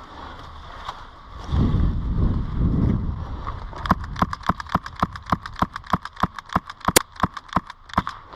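A low rumble of wind or handling noise on the microphone, then a steady run of sharp clicks, about three a second for about four seconds, one of them much louder near the end.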